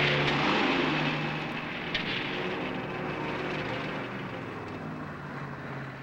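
Convertible car driving, its engine and road noise swelling at the start and slowly fading away.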